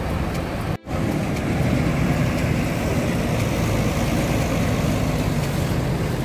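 Diesel engine of a large coach bus running steadily as the bus pulls away and passes close by. The sound cuts out completely for an instant a little under a second in.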